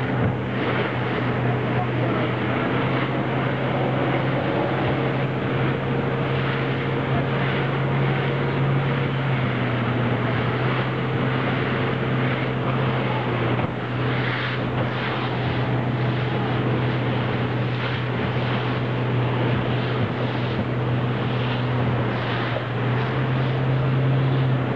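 Steady drone of a rigid inflatable boat's motor running under way, over a constant rush of wind and water with occasional slaps of spray against the hull.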